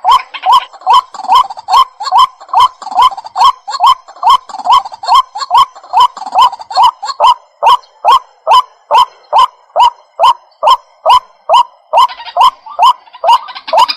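White-breasted waterhen calling: a loud, monotonous run of short rising notes, repeated evenly at about two and a half a second.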